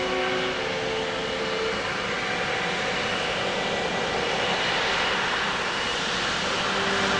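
Airliner engines running: a steady rushing noise with faint steady tones in the first couple of seconds.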